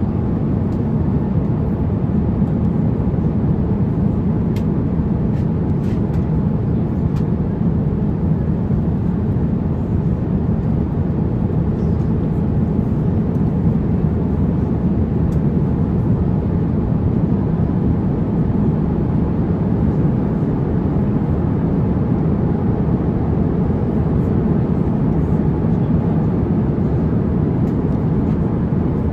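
Steady, low cabin roar of an Airbus A350-900 airliner, even throughout, with a few faint light ticks.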